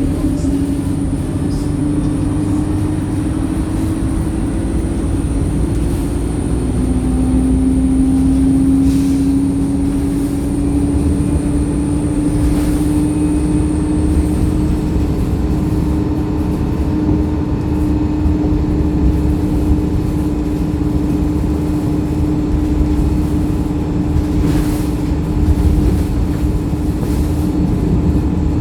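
Wright StreetLite single-decker bus heard from inside while under way: steady diesel engine and road rumble with a driveline whine that drops about six seconds in, then climbs slowly in pitch as the bus gathers speed and levels off.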